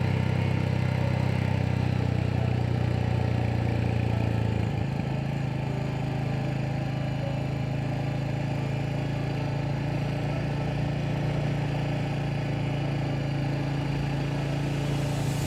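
Motorcycle engine running steadily under way, a low hum. About four and a half seconds in its note shifts and it gets a little quieter, as with a change of throttle or gear.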